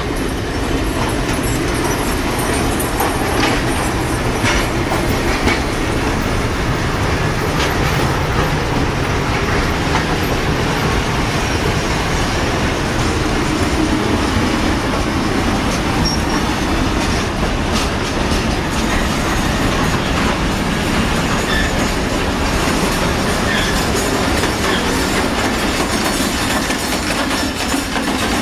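Railroad passenger coaches and a caboose rolling past at close range: a steady rumble of steel wheels on rail, with clicks over the rail joints and a few brief wheel squeals in the second half.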